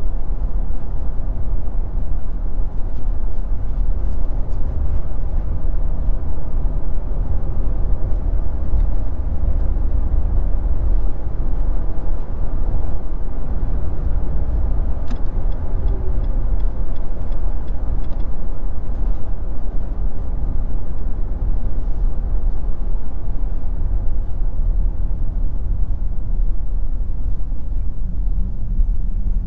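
Steady low rumble of engine and road noise inside the cab of a 2022 Nissan Frontier Pro-4X driving at city speed: its 3.8-litre V6 and all-terrain tyres on the pavement.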